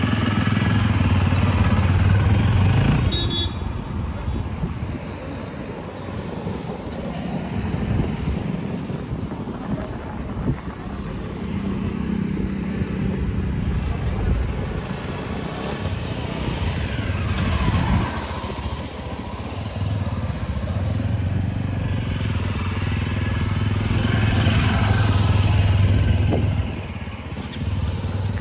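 Yezdi Adventure's single-cylinder engine running as the motorcycle is ridden around, growing louder as it comes near and fading as it moves away, several times over.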